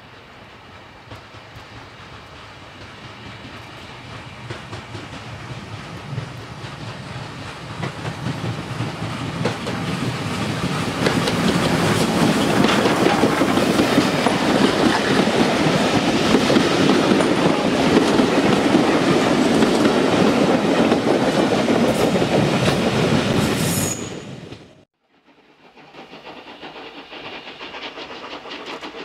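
A steam-hauled train approaches and passes close by, growing steadily louder for about ten seconds; the coaches' wheels clatter over the rail joints as they go past. About 24 seconds in the sound cuts off abruptly, and a quieter sound of a distant train follows.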